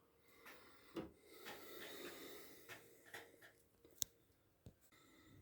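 Near silence, with a few faint clicks and a soft rustle of handling, and one sharp tick near the end.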